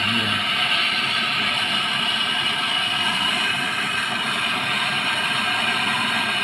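Welding on a window-type air conditioner to seal a hole: a steady, even hiss with no breaks.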